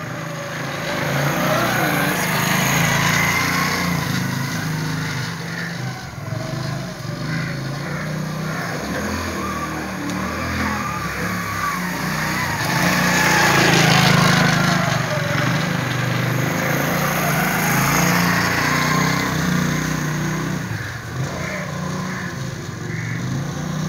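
Motorcycle engine running as the bike is ridden back and forth over a pile of dried mustard stalks to thresh them; it gets louder about halfway through as it passes close.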